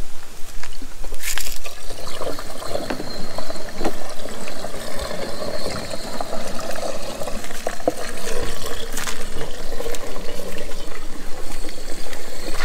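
Diesel pouring from a plastic jerry can through its spout into a Ford Ranger Raptor's fuel filler, a steady liquid pour that starts about two seconds in after a few clicks of the can being handled.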